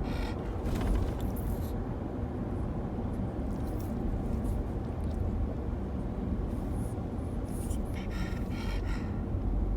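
Steady low rumble and road noise of a moving vehicle, with a few faint higher sounds about eight seconds in.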